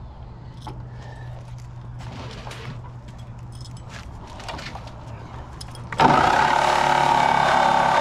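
Light clicks and handling noise, then about six seconds in a corded reciprocating saw (a Porter-Cable Tiger Saw with a Diablo metal-demolition blade) starts abruptly and runs steadily, cutting into the steel shell of a water heater tank.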